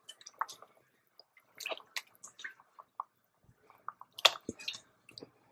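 Pieces of meat being put into a pot of soup: soft wet squelches and drips, scattered irregularly, with a sharper knock about four seconds in.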